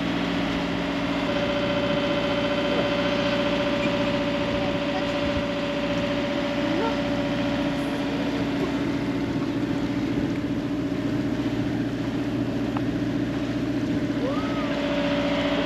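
A sailboat's engine running steadily under way, with an even, unchanging hum.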